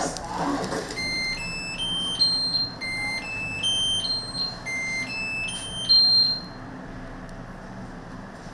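An electronic beeper plays a short rising four-note melody three times in a row, holding the top note of each run. The beeping stops about six and a half seconds in.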